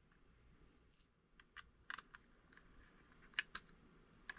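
Faint, scattered light clicks and taps of small plastic and metal parts as a small drone's body is handled and tiny screws are lined up, the sharpest click about three and a half seconds in.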